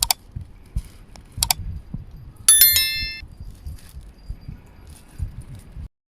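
Sharp metallic clicks, then a short ringing metallic jingle about two and a half seconds in that fades within a second, over soft low thumps. The sound cuts off near the end.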